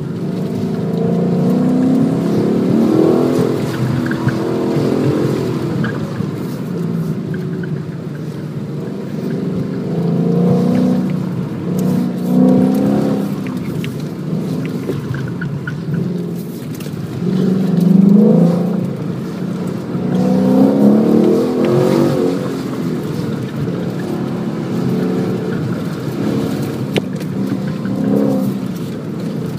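Ford Mustang GT's V8 heard from inside the cabin on an autocross run, repeatedly accelerating hard and backing off between cones, so its note swells and falls every few seconds.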